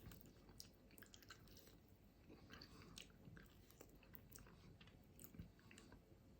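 Faint chewing of a person eating piri piri chicken wings, with small irregular clicks of biting and mouth sounds.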